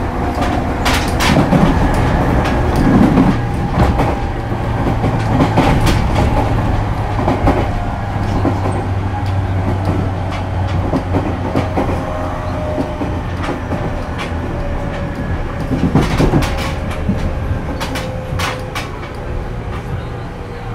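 Running sound inside a JR East 205 series 5000 subseries motor car with Toyo IGBT-VVVF drive, under way at speed. The wheels clack over rail joints now and then, over a steady hum from the drive under the floor that slowly eases down in pitch.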